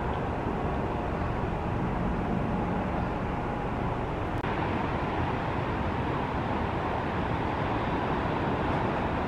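Steady outdoor background noise, an even rumble and hiss with no distinct events. It turns slightly brighter about four and a half seconds in.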